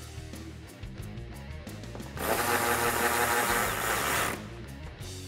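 Cordless electric ratchet running for about two seconds, starting about two seconds in, driving a 10mm bolt down tight. Background music plays underneath.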